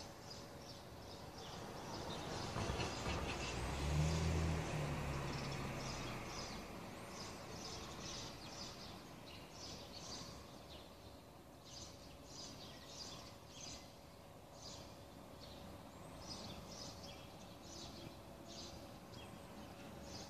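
Small birds chirping over and over, short high calls about twice a second, against outdoor background noise. A passing vehicle swells up and fades away in the first third.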